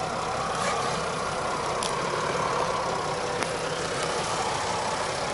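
Mercedes-Benz GL 350's 3.0-litre V6 diesel engine running steadily at low speed while the SUV creeps over off-road ground.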